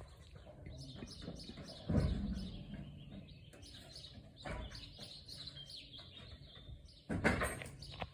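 Small birds chirping and twittering, with a louder low thud or rumble about two seconds in and another near the end.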